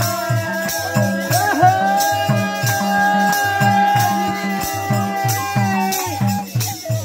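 Bamboo transverse flute playing long held notes over a drum beating about two strokes a second, with a high rattling percussion keeping time: live folk-style music.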